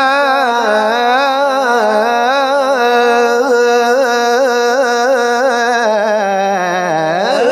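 A male Quran reciter holds one long melodic note in maqam-style tajwid recitation of 'udkhulūhā bi-salām', with a rippling, wavering ornament through the middle. The note breaks off just before the end.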